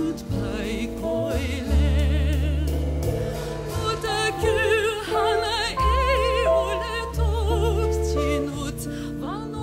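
A live band playing: a woman sings held notes with a wide vibrato over an upright double bass, electric guitar and drums, with long sustained low bass notes underneath.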